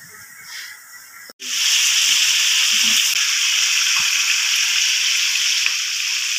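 Marinated chicken pieces frying in hot oil in a pan: a loud, steady sizzle that begins abruptly about a second and a half in, with a few light knocks as a spatula turns the pieces.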